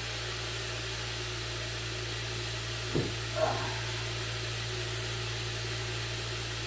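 Steady low hum of an electric vibrating table running, the plaster mould for a mushroom casting lifted off it. A short knock comes about three seconds in, with a brief squeak just after.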